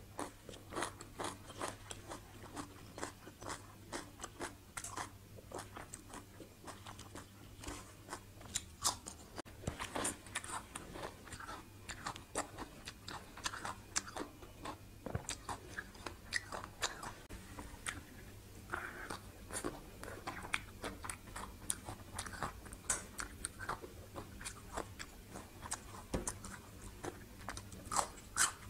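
Close-miked chewing and biting of crisp raw vegetables: a continuous, irregular stream of sharp crunches.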